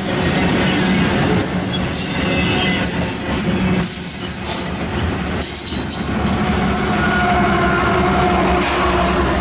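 Freight cars of a long eastbound intermodal train rolling steadily past on steel rails, with wheels squealing at times.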